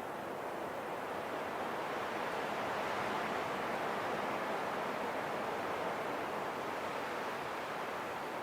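Wind blowing steadily: an even rushing noise that swells a little in the middle and eases again.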